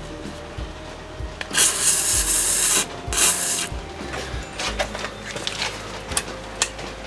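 Two hissing spray bursts, the first a little over a second long and the second about half a second, followed by scattered light clicks and taps of metal tools.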